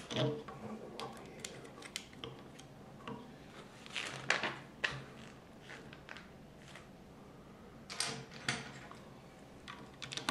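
Plastic Lego bricks clicking and rattling as they are handled and pressed onto a model car's chassis: scattered sharp clicks, with denser bunches about four and eight seconds in.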